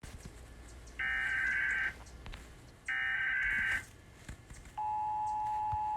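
Emergency Alert System broadcast opening: two digital header data bursts of about a second each, then a steady attention tone starting about five seconds in.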